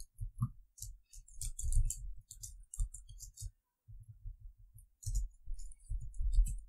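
Computer keyboard typing: an uneven run of keystroke clicks, each with a low thud, with a short pause about halfway through.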